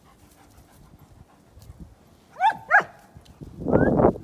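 Husky-type dog vocalizing in play: two short, high yips that drop in pitch, then about a second later a louder, rough, growly bark.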